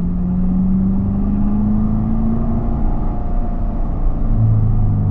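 Chevrolet Corvette C7's 6.2-litre LT1 V8 pulling under acceleration, its note rising steadily for the first couple of seconds. The note then fades and comes back at a lower pitch about four seconds in.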